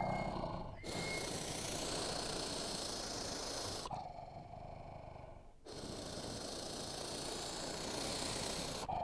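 Badger making harsh, breathy growls in two long stretches of about three seconds each, with a quieter pause of about a second and a half between them.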